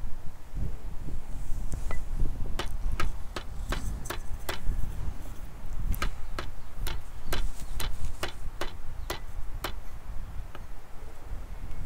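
A large kitchen knife chopping raw frog meat and bone on a wooden chopping block: a run of sharp knocks, about two or three a second, from about two seconds in until near the end, over a steady low rumble.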